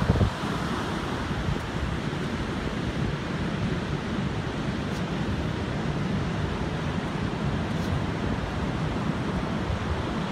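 Ocean surf breaking and washing up the beach, a steady rushing roar, with wind buffeting the microphone and a brief louder bump right at the start.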